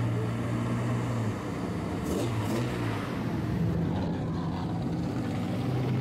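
Engines of lowered old Japanese cars running at low revs as they drive slowly past, a steady low exhaust note.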